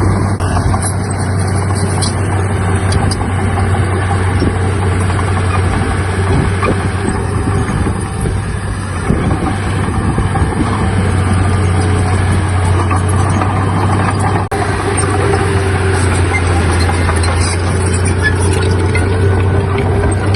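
Heavy diesel engine of earthmoving machinery running steadily, with a constant low drone.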